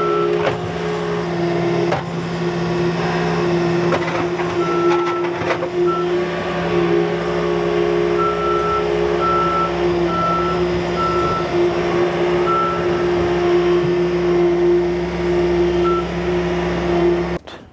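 Bobcat T450 skid steer's diesel engine running steadily under load as the machine is driven onto a roll-off dumpster, with a few knocks and its back-up alarm giving short, irregular beeps. The engine sound cuts off abruptly near the end.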